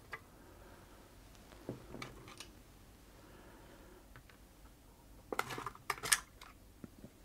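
Light clicks and plastic rattles of hands freeing the electronic circuit board of a Bernina 930 Record sewing machine from its fixings and wiring. A few faint clicks come about two seconds in, and a louder cluster of clicks and rattles comes between five and six seconds.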